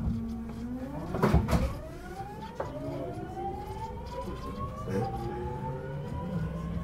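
Mitsubishi GTO-VVVF traction inverter of a TWR 70-000 series electric train whining in several rising tones as the train accelerates from a stop. A short, loud rush of noise comes about a second in, and the whine steps in pitch twice as it climbs.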